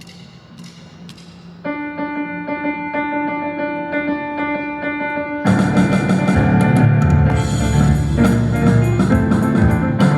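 An ensemble piece starts: a single held keyboard note sounds steadily, then about five seconds in a drum kit and full accompaniment come in and the music gets louder.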